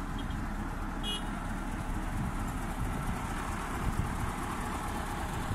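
Prime mover's diesel engine idling with a steady low rumble, and a short high beep about a second in.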